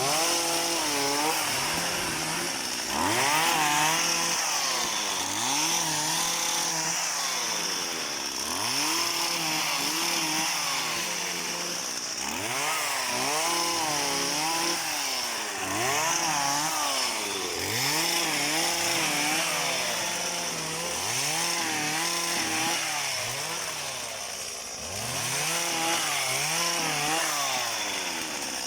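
Small engine of a motorized oil palm pruning tool, revving up and dropping back again and again as it cuts fronds.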